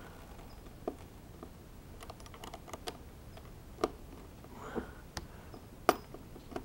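Irregular clicks and taps of a hand screwdriver and plastic parts as a hinge screw is worked back into a glued hole in a Vespa's plastic inner panel, with a few sharper knocks about a second, four seconds and six seconds in.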